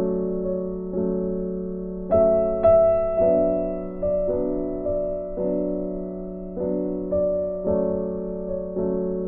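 Background music of soft piano-like keyboard chords, a new chord struck about once a second and fading before the next.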